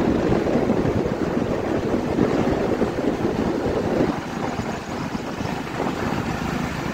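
Wind buffeting the microphone of a moving two-wheeler, mixed with engine and road noise, as a dense, low rumble that eases slightly about four seconds in.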